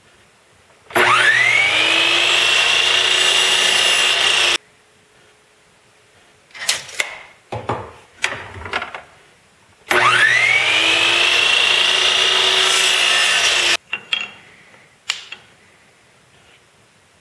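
Electric chop saw run twice, each time for about three and a half seconds. Each time its motor whine climbs in pitch as it spins up and holds while the blade crosscuts a small wooden strip, then breaks off abruptly. Short wooden knocks and clatter come between and after the cuts.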